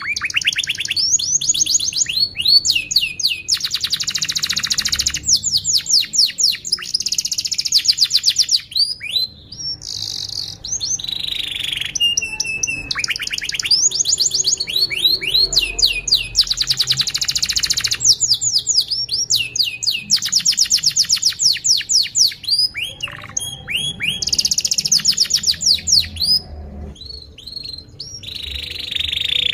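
Domestic canary singing a long song of fast trills and quick downward-sweeping notes, phrase after phrase, with a few short pauses between phrases.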